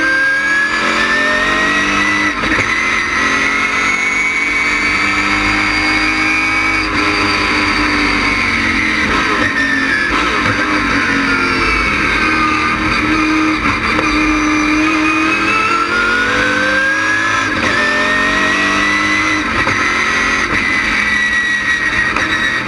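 LS6 V8 of a stock race car running hard on track, its pitch climbing and dropping several times as it revs through corners and straights.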